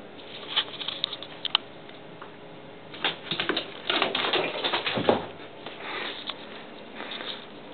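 Cat's paws and claws scrabbling and tapping on a tile floor during a chase after a mouse, in irregular flurries of quick clicks: a short one early, a longer and louder one in the middle, and a lighter one near the end.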